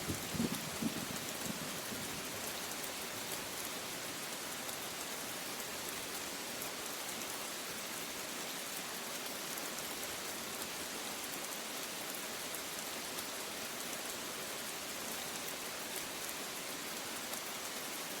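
Steady rain falling hard on a surface, an even hiss throughout. A brief low rumble of thunder fades out in the first second or so.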